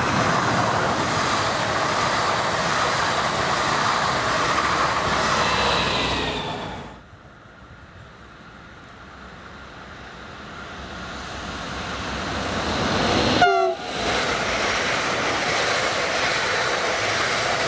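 Nord-Ostsee-Bahn passenger trains passing on mainline track. Coaches rush past with steady wheel-on-rail noise until a sudden cut; then a train approaches and grows steadily louder, sounding a short horn note that falls in pitch at its loudest. After another cut, a second stretch of coaches rushes past.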